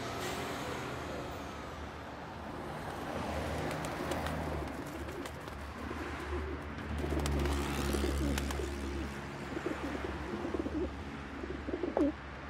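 Feral pigeons cooing over a steady low rumble, with a short, louder sound near the end.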